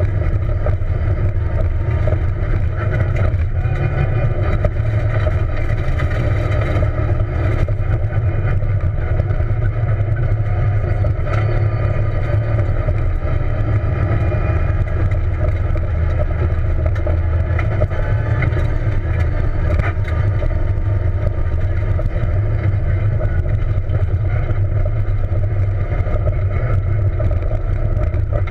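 Peugeot 207 rally car driven at speed on a dirt road, heard from inside the cabin: a steady engine drone mixed with tyre and road noise, with no big changes in loudness.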